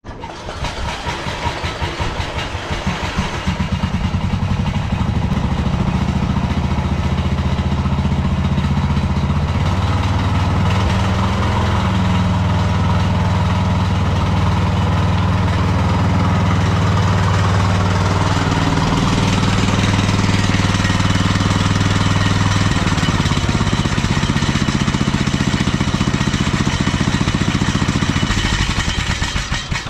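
Riding lawn mower's Briggs & Stratton 18 hp Intek engine running steadily as the mower drives up close, growing louder over the first few seconds, then shut off just before the end.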